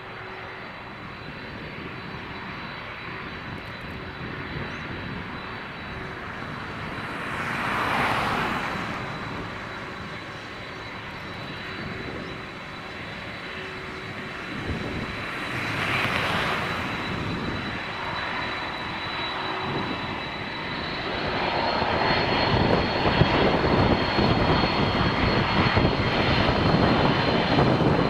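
Large jet aircraft's engines running with a steady high fan whine over a broad rumble. There are two brief swells of rushing noise about eight and sixteen seconds in, and the engine sound grows louder and fuller for the last several seconds.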